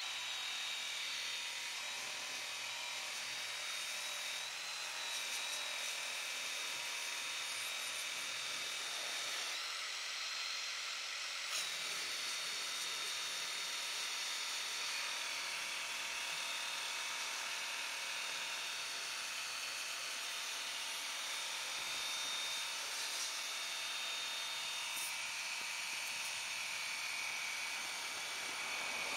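WORX Hydroshot 40-volt cordless pressure washer running steadily as it sprays: a high, whining electric motor and pump over the hiss of the water jet. It kicks on abruptly.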